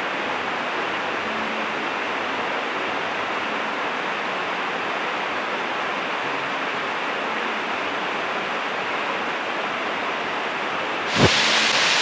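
Waterfall's steady rush of falling water, an even hiss with no breaks or changes.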